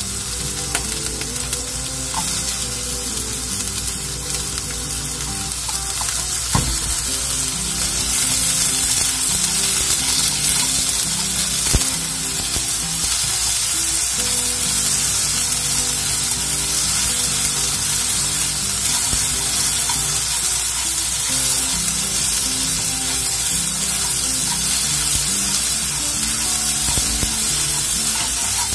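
Sliced onions sizzling as they stir-fry in a nonstick wok while being turned with chopsticks; the sizzle grows louder about eight seconds in, with a couple of sharp taps of the chopsticks on the pan.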